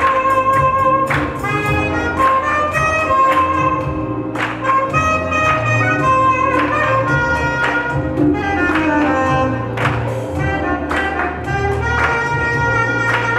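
Soprano saxophone playing a gospel melody of long held notes, over a backing with a steady beat and a bass line.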